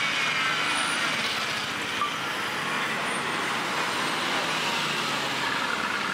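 Cars and a motorcycle driving slowly past, giving a steady mix of engine and traffic noise. A Mercedes-AMG GT's twin-turbo V8 passes close in the second half.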